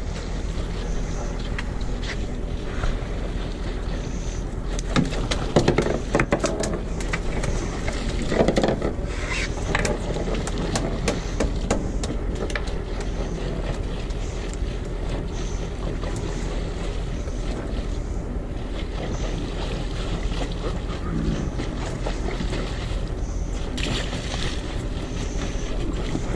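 Steady wind noise on the microphone over a boat's low hum, as a conventional fishing reel is cranked to bring in a fish. Scattered clicks and knocks from handling the rod and reel come between about five and thirteen seconds in.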